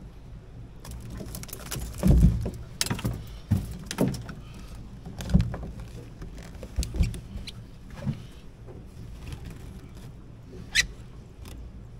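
Handling noise from a wire-framed mesh crab pot and a mud crab being shaken out of it onto the boat's carpeted deck: irregular knocks, thumps and rattles, loudest about two seconds in.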